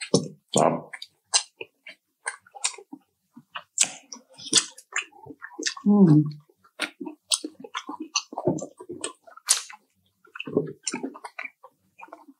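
Close-up chewing of fried chicken: wet smacks, clicks and bites in a quick, irregular run, with a short falling hum from the eater's voice about six seconds in.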